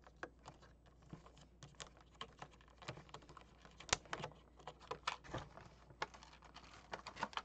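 Irregular light clicks and taps of a clear plastic packaging tray and its wire twist ties being handled while the ties are untwisted.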